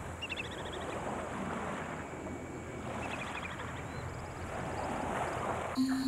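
Steady shoreline wind and water noise, with a short, rapid bird trill a fraction of a second in.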